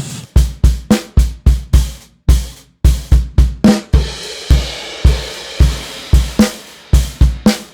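Recorded drum kit played through the console's gated snare top mic channel with its EQ switched off: a steady beat of kick and snare hits, with a cymbal wash near the middle.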